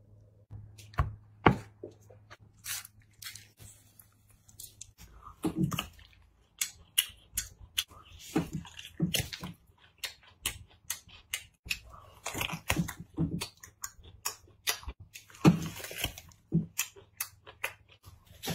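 Gloved hands pulling and stretching a large sheet of braised meat, giving sticky, wet squelches and crackles with sharp clicks at irregular moments, with denser squishy stretches at a few points.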